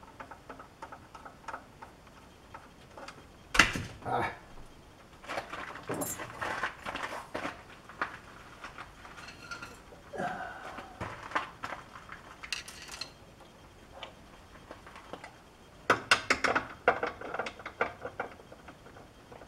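Intermittent metallic clinks, taps and clatter of hand tools and steel parts being handled while a new part is mounted on a metal lathe. A sharp knock comes about three and a half seconds in, and a quick run of clinks about sixteen seconds in.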